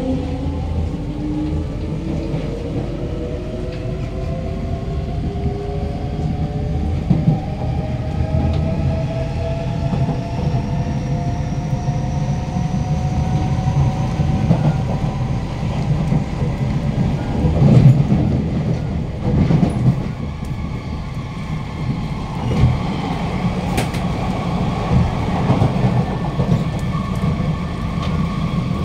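Inside a Kawasaki–CRRC Sifang C151B MRT carriage as the train pulls away: the traction motors' whine climbs steadily in pitch for about the first ten seconds of acceleration. After that the train runs at speed, with wheels rumbling and clattering on the track and a steadier hum.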